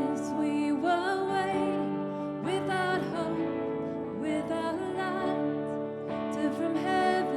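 Church worship band playing a slow, tender song live, with a sung melody over sustained instrument chords.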